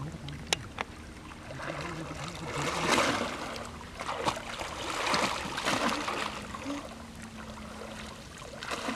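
Water sloshing and splashing as a man wades through a shallow pond, pushing a bamboo plunge basket through the water. The splashing swells about three seconds in and again around five to six seconds.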